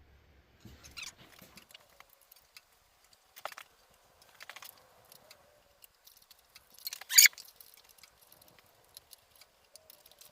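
Scattered small clicks, taps and rattles of hardware and tools being handled while handguards are adjusted on a motorcycle handlebar, with one sharper clack about seven seconds in.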